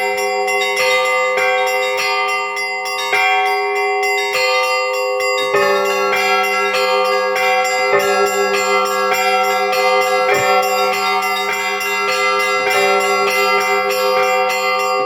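Russian Orthodox church bells rung by a single bell-ringer: the smaller bells struck in a quick repeating pattern, about two strikes a second, over the ringing of the larger bells. A heavier, fuller bell stroke comes in about five and a half seconds in.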